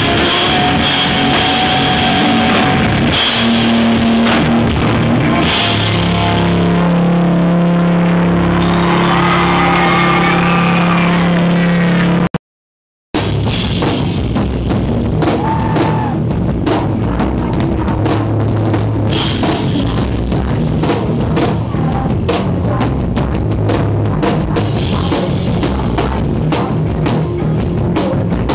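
Live rock band at full volume. A song winds down on long held chords, then the sound cuts out for an instant. The next song comes in with pounding drums, crashing cymbals and distorted guitars.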